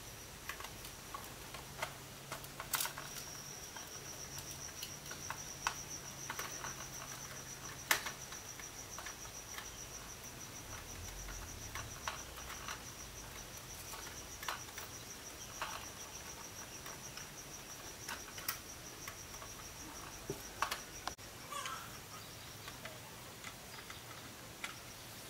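Steady high-pitched insect trill, such as a cricket, that starts about three seconds in and stops a few seconds before the end, with scattered light clicks and taps throughout.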